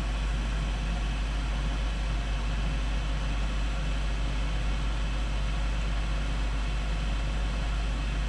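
6-inch inline duct fan running steadily: an even, unbroken rush of air noise over a constant low hum.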